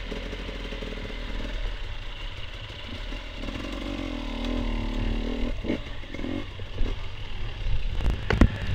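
Off-road racing vehicle's engine running steadily, with rattling and clattering over rough ground and a sharp knock about eight seconds in.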